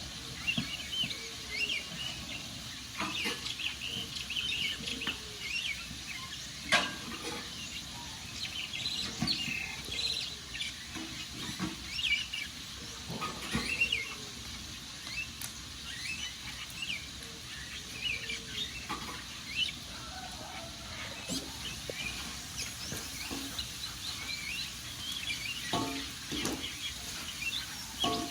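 Wood fire crackling, with scattered sharp pops, while small birds chirp and twitter over a steady hiss.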